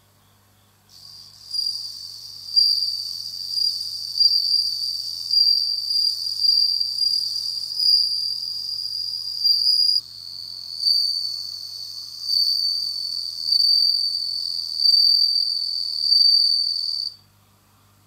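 Male suzumushi (Japanese bell cricket) stridulating with its wings raised: a clear, high, ringing trill in repeated swelling phrases about once a second. It starts about a second in and stops shortly before the end.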